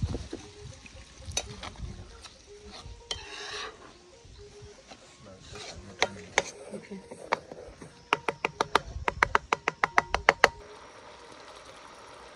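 Metal spoon stirring a thick tomato and chili sauce in a frying pan, scraping and clicking against the pan. About eight seconds in comes a quick run of sharp taps, about six a second, that stops suddenly.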